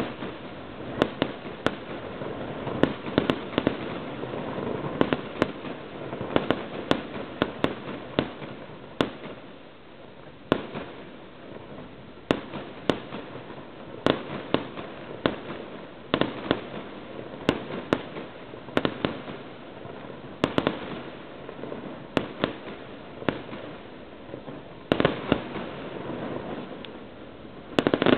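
Fireworks going off: a long run of sharp bangs at irregular spacing, about one or two a second, over a steady crackling hiss, getting louder and denser at the very end.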